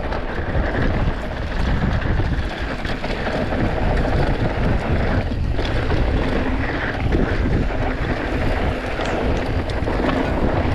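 Wind buffeting the microphone of a mountain bike going fast downhill, over the hiss and rumble of tyres on hard-packed dirt, with scattered clicks and rattles from the bike.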